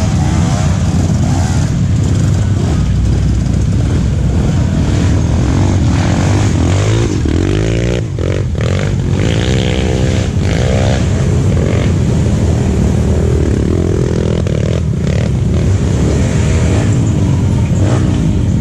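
Enduro dirt bike engines revving hard over a steady low rumble, pitch rising and falling in repeated surges, most strongly through the middle.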